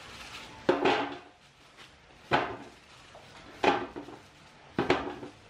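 Raw potato and carrot wedges dropped one handful at a time into a stainless steel roasting pan: four knocks on the bare metal, each with a short ring, about a second and a half apart.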